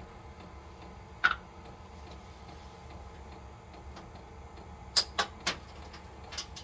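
A few sharp clicks and knocks from handling the diesel heater's cover: one about a second in, then a quick run of three about five seconds in, over a steady low hum.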